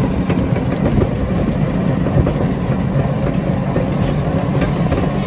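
Steady engine and road rumble of a moving vehicle, heard from on board.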